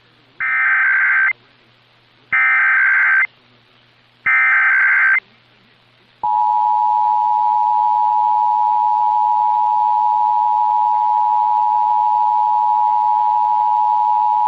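Emergency Alert System test tones received on AM radio. Three one-second bursts of the digital SAME header data come first, about a second apart. Then the steady two-tone EAS attention signal (853 and 960 Hz) sounds for about eight seconds.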